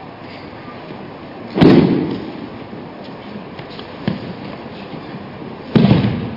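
Two loud thuds about four seconds apart, with a smaller knock between them: aikido break-falls, a thrown partner's body and slapping arm landing on the mat. Steady background hiss throughout.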